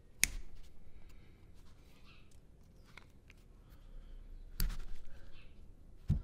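Sharp clicks and handling noise of needle-nose pliers on the removed VANOS oil filter plug of a BMW S54 engine, as the small filter is pried out of it: a sharp click just after the start, a fainter one about three seconds in, a louder one about four and a half seconds in, and another just before the end.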